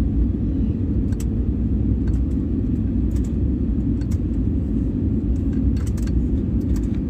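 Steady low rumble of jet engines and rushing air heard inside an airliner's cabin on final approach, with a few faint scattered clicks.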